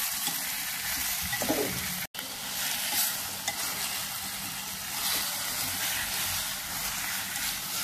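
Pork belly and kimchi sizzling in hot oil in an earthenware pot while being stir-fried, with the stirring utensil scraping and turning the food. The sound cuts out for an instant about two seconds in.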